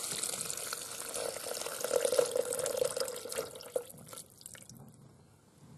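Vegetable stock poured from a glass jug into a soup maker's non-stick jug of vegetables: a steady splashing stream that thins to a trickle and stops about four seconds in.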